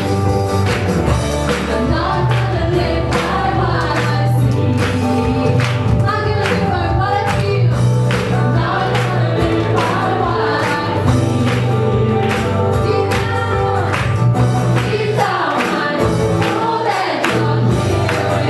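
Worship song with several voices singing together over a band with a steady drum beat.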